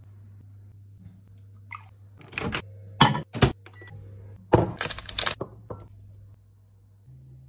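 Sharp clicks and knocks of kitchen handling, a ceramic bowl and a microwave oven's door, in two quick clusters about three and five seconds in, over a steady low hum.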